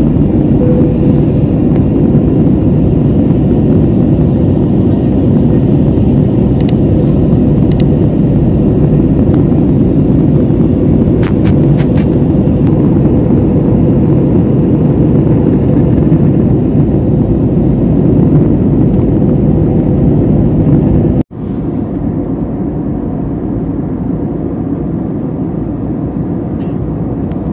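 Jet airliner cabin noise in flight: the steady rush of the engines and airflow, with a faint steady hum through it. Near the end it cuts abruptly to a quieter stretch of the same kind of noise.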